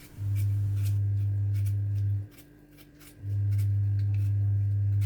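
Short, dry scraping clicks of potatoes being peeled by hand, repeating irregularly. Under them a loud, steady low hum stops about two seconds in and starts again about a second later.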